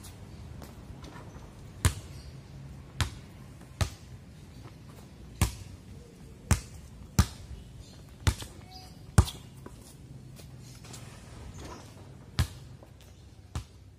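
Basketball bouncing on a paved outdoor court: about ten separate sharp bounces at uneven spacing, some under a second apart and others several seconds apart.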